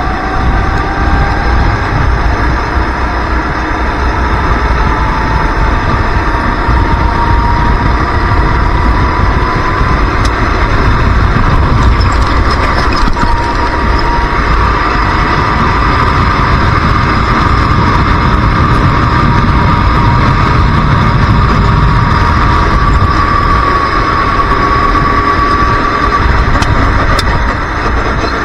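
Go-kart engine running at race pace, heard from the driver's seat: a high whine that climbs slowly, dips briefly about halfway, rises to its highest near the end and drops off at the very end, over a steady low rumble.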